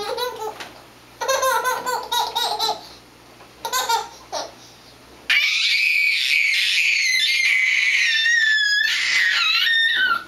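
Young child laughing in short bursts, then letting out a long, loud, high-pitched squeal from about five seconds in.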